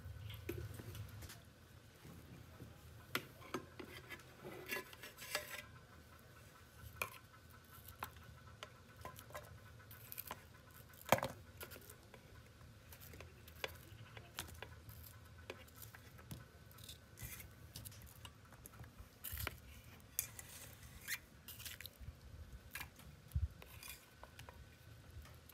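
Scattered light clicks and taps of a kitchen utensil working against a bowl while fish and onions are mixed, with one sharper clink about eleven seconds in. A short pour of oil into a steel wok opens the sequence.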